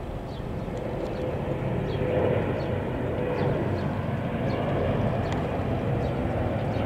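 Boeing 777-300ER's GE90 turbofan engines passing overhead on approach to land: a steady rushing engine noise with a faint hum that grows gradually louder.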